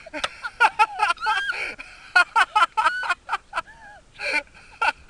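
A woman's high-pitched squeals, gasps and laughter in quick short bursts, from the shock of a dip in icy winter water.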